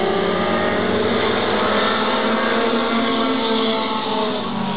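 A field of race cars running together round a short oval track, several engine notes overlapping and slowly gliding in pitch as the cars pass.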